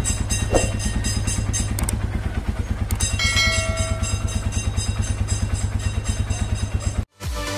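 Motorcycle engine idling steadily with an even exhaust beat, running on a replacement PC27 carburetor that has cured its hard starting. The sound cuts off suddenly near the end.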